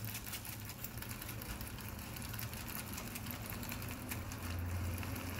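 Aluminium foil crinkling and silver jewellery rattling in a foil-closed cup of hot water and baking soda as it is shaken to clean tarnished 925 silver: a fast, steady stream of small clicks and rustles over a steady low hum.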